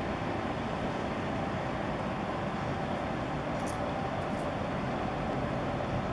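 Steady drone of a boat's engine with water rushing along the hull, mixed with wind.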